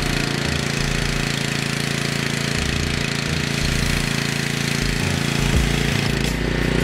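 Ryobi gas pressure washer engine running steadily, with the hiss of the foam cannon spraying foam onto the car.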